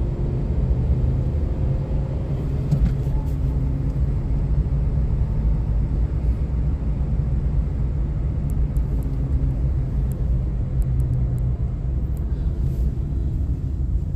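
A car driving along at steady speed: a constant low rumble of engine and road noise.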